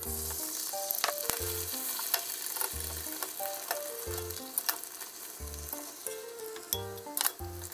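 Beaten egg sizzling in a hot oiled rectangular tamagoyaki pan as a new layer is poured, spread and rolled, with a few sharp clicks of wooden chopsticks against the pan.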